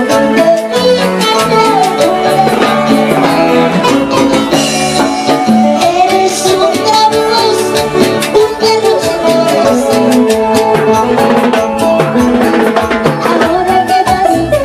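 Live band music with a steady beat, an electro-acoustic guitar playing among the instruments.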